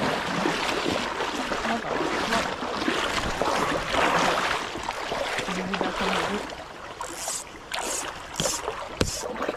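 Creek water rushing and splashing, a steady rush, giving way near the end to a few short bursts and a sharp click.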